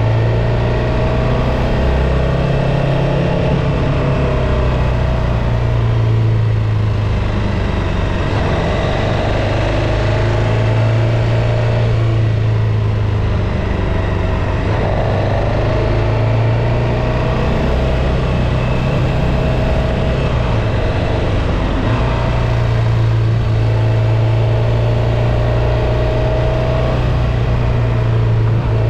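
Motorcycle engine running at a steady cruise, its pitch easing off and picking up a little now and then, over a constant rushing noise.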